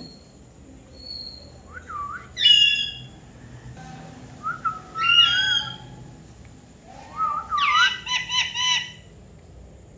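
Indian ringneck parakeet calling three times, each call a short rising whistled note. The calls come about two, five and seven seconds in, and the last breaks into a quick run of about four chirps.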